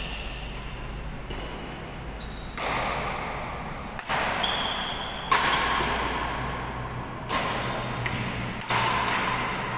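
Badminton rackets hitting a shuttlecock back and forth in a rally: a sharp smack every second or two, each one echoing around a large hall.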